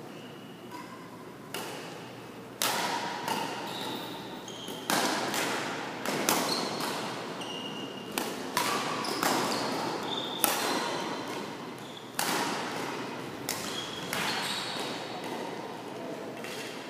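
Badminton rackets striking a shuttlecock in a rally: a series of sharp smacks, about one every second or so, each echoing in the hall, with short high squeaks between the hits.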